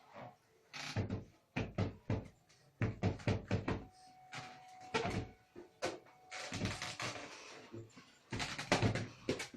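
Irregular knocking and banging, a quick series of hard thuds and knocks like a child hitting things or a door.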